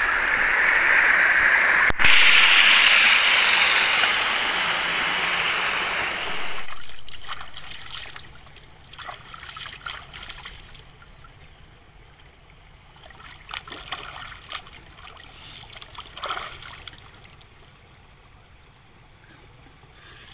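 Rainwater runoff rushing steadily over rock slabs for about six seconds, then cutting away to quiet, scattered small splashes as hands scoop water from a muddy pool and lift it to the face.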